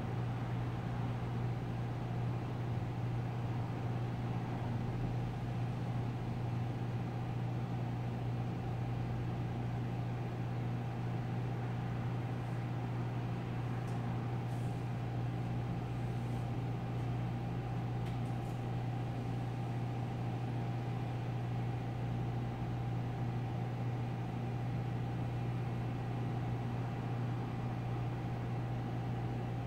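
Steady low mechanical hum with a faint thin tone above it, and a few faint ticks around the middle.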